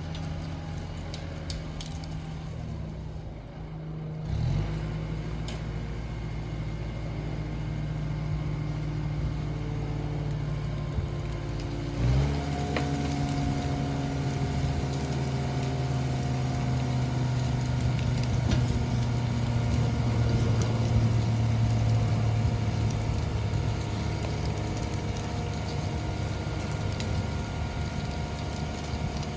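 Kubota tractor's diesel engine running steadily, with a brief rise in pitch about four seconds in; about twelve seconds in the engine speeds up sharply and keeps running at the higher speed.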